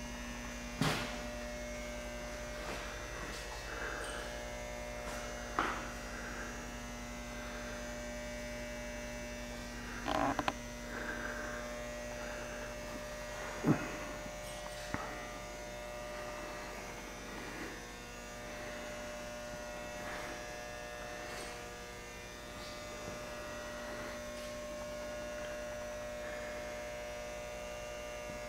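Steady electrical mains hum with a faint high whine, broken by a few scattered knocks and clicks, the sharpest about halfway through.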